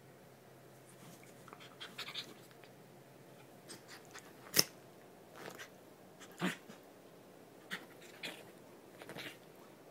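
Small dogs play-fighting, making scattered short dog noises. One sharp click about halfway through is the loudest sound.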